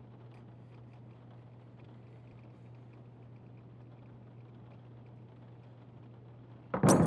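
A low steady hum with faint scattered ticks, then a sudden loud bang near the end.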